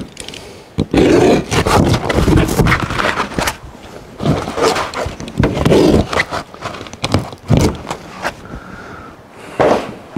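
Old rubber roofing membrane being pulled and scraped off a camper's quarter-inch lauan roof deck in strips, in several noisy tearing spells with short pauses between.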